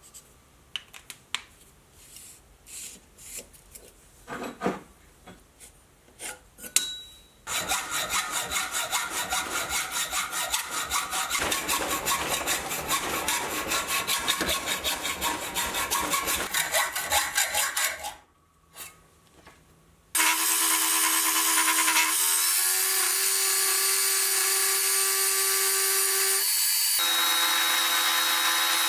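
Faint scratches and taps as a steel bar is marked out, then a hand hacksaw cutting through the bar in rapid, even strokes for about ten seconds. After a short pause a milling machine's end mill starts cutting the steel suddenly and loudly, a steady whine that shifts pitch a couple of times.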